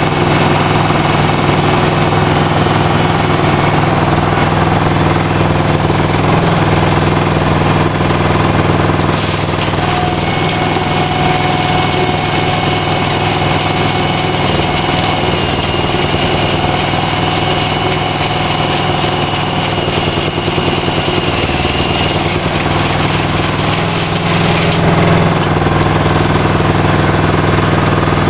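Aquatic weed harvester running steadily, its engine driving the mesh pickup conveyor that lifts floating hydrilla. A thin higher whine joins in the middle and stops again later.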